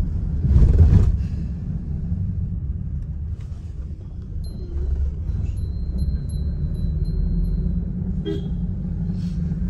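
Steady low rumble of a car driving along the road, with a louder rush of noise about a second in and a faint thin high tone for a few seconds in the middle.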